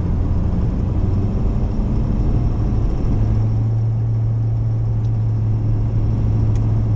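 Inside the cab of a 2017 Ford F-250 with the 6.7-litre turbo diesel while driving: a steady low engine drone over road rumble, the drone growing stronger about three seconds in.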